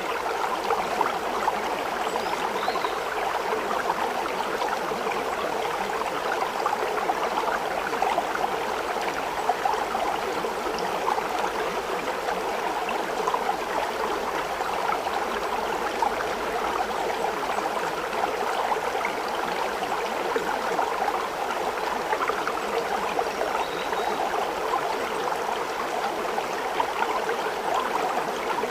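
Running water, like a stream, flowing steadily with no breaks or changes.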